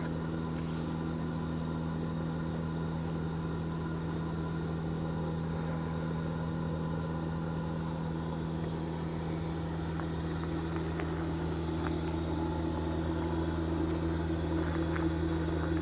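Steady hum of a wood gasifier's blower running during the gasifier's heat-up, a low drone with a few steady tones, growing slightly louder near the end.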